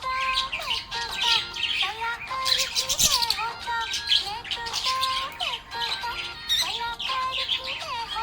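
Budgerigar chirping and warbling in quick, busy strings, over background music with a simple stepping melody.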